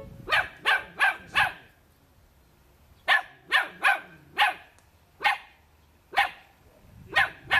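Tan-and-white puppy barking: four quick barks, a short pause, then about eight more barks at uneven intervals.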